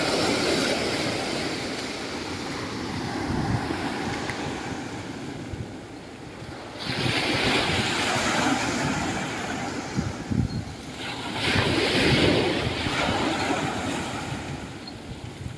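Small sea waves breaking and washing up a sandy beach. The surf swells three times, each surge rising and then fading away.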